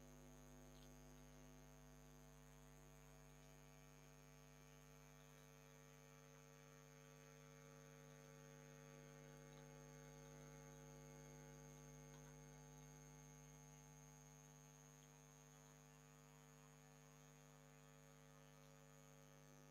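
Near silence: a faint, steady electrical hum with several overtones and a faint high steady tone, the background noise of the recording.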